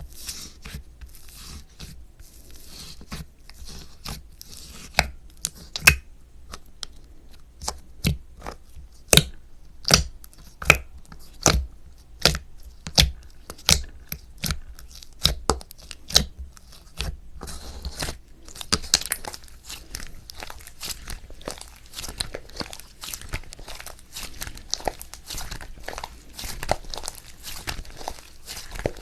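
Soft, cream-textured slime worked by hand, giving sharp sticky pops and clicks. These come about once or twice a second through the middle, then give way to a denser, fainter crackling about two-thirds of the way in.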